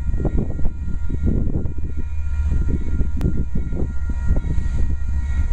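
Union Pacific diesel locomotives heading a stack train give a steady low engine rumble as they approach from a distance, under irregular wind buffeting on the microphone.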